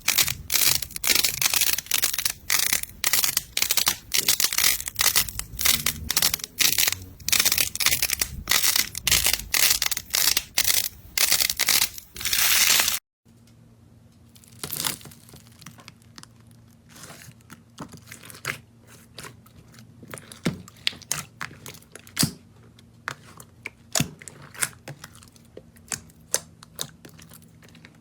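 Slime being handled, with a dense run of loud crackling and crunching. After an abrupt cut about 13 seconds in, it turns quieter: scattered sharp clicks and pops over a faint low hum.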